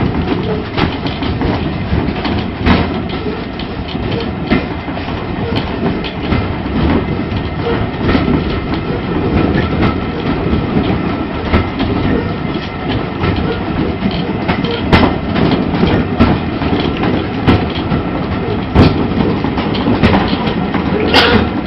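Steam train carriage running along the track, heard from inside the compartment: a steady loud rumble and rattle of wheels on rail, with irregular sharp knocks as the wheels cross rail joints.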